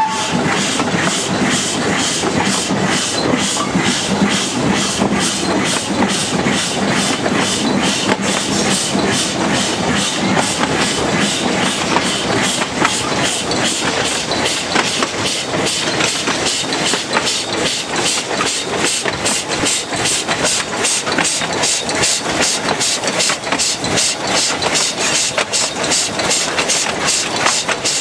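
Narrow-gauge train in motion, hauled by a TU2 diesel locomotive: the locomotive's engine running under the steady noise of the moving train, with a fast, even clatter of wheels over the rail joints.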